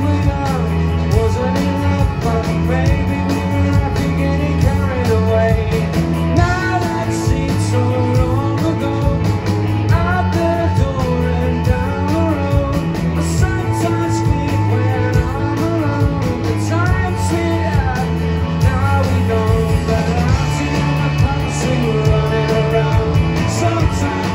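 Rock band playing live: electric guitars, bass guitar and a drum kit keeping a steady beat.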